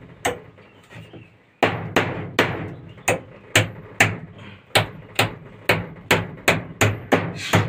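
Small hammer striking repeatedly at the top of an upright plastic water pipe, where it is being fixed to the wall and wooden beam. One knock comes just after the start, then a steady run of sharp blows, about two to three a second, begins about a second and a half in.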